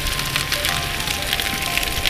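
Cauliflower steaks sizzling and crackling on a hot griddle plate on a grill, a dense, even crackle, under soft background music with long held notes.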